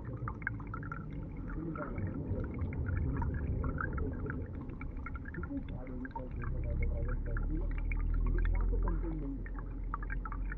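Flowing stream water heard underwater through a submerged GoPro: a low rumbling flow with many small ticks and crackles, swelling louder between about six and nine seconds in.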